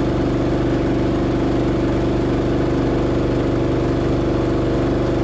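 An engine idling steadily, a constant pitched hum with even firing pulses and no change in speed.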